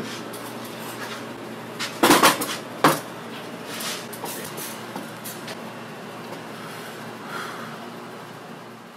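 Two sharp knocks or clatters, about two and three seconds in, over a steady low hum and faint hiss.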